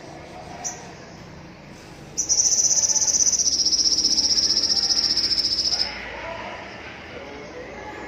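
Sogok ontong (spiderhunter) bird giving a loud, rapid, high trill of about three and a half seconds that sinks slightly in pitch, after a single short high chirp.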